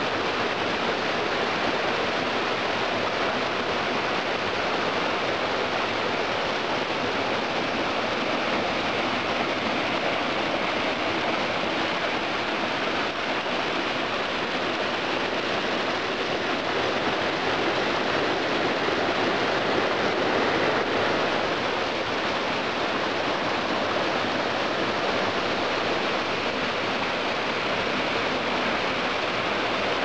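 Mountain stream pouring down a small cascade over boulders: a steady, unbroken rush of falling and splashing water.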